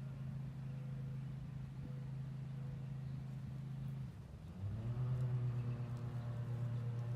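A motor engine running with a steady hum. About four seconds in it drops away briefly, then rises in pitch and runs on louder.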